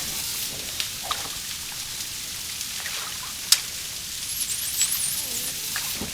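Dolphins heard underwater: a run of clicks over a steady hiss, with one sharp click about three and a half seconds in. Near the end comes a cluster of several very high whistles that rise and fall.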